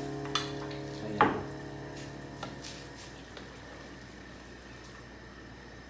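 Wooden spoon stirring soup in a metal pot, with one sharp knock of the spoon about a second in and a few lighter clicks, then faint stirring. A piano note from the background music dies away at the start.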